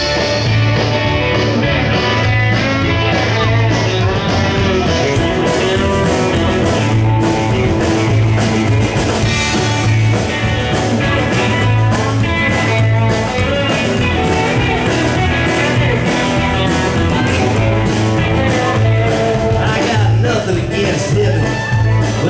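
Live outlaw-country band playing an instrumental break: upright bass, drum kit, and acoustic and electric guitars, with a steady beat.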